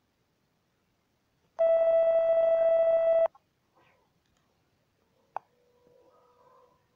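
A single steady electronic test-tone beep, about a second and a half long, cutting on and off abruptly: the colour-bar 'signal interference' sound of a phone video editor's effect. A faint click follows near the end.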